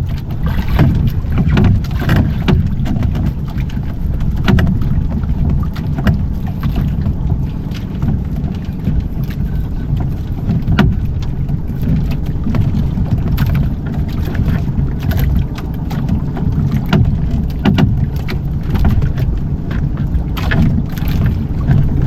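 Wind buffeting the microphone and water washing against a small fishing boat at sea, a steady low rumble broken by scattered short knocks and splashes.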